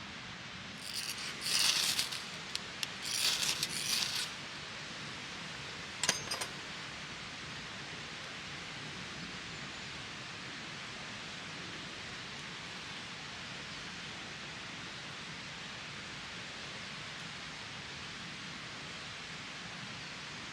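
Two brief bursts of rustling, clinking handling noise in the first few seconds and a single sharp click about six seconds in, over a steady background hiss.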